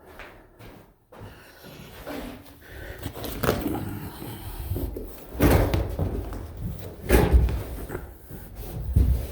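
Carpet being handled on the floor: rustling and scraping with dull thumps, the loudest about five and a half, seven and nine seconds in.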